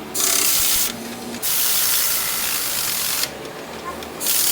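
Hissing spray in three bursts, each lasting roughly one to two seconds, with short gaps between them.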